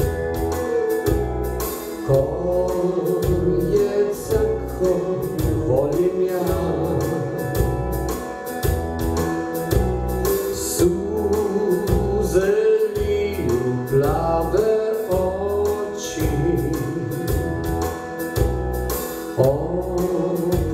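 Man singing a slow country ballad in Croatian into a microphone over recorded backing music with a steady low beat.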